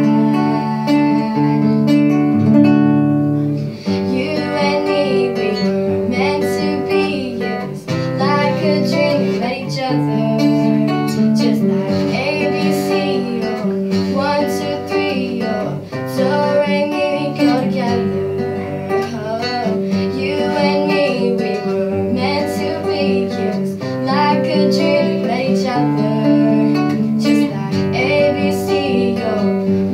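A young female voice singing a song to her own strummed nylon-string classical guitar.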